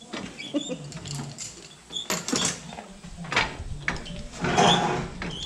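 Irregular metallic clicks and knocks of a wrench working a nut on a bolt of the three-point quick hitch being tightened, with a louder scrape just before the end.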